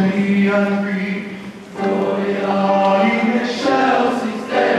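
Male choir singing sustained chords, breaking off briefly a little under two seconds in and then coming back in.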